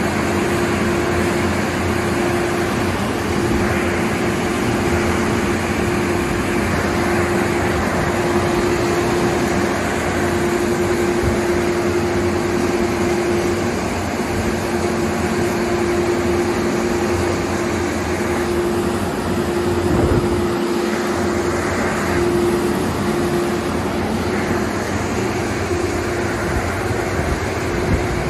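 Ryko car wash dryer blowers running: a steady rush of air with a steady hum.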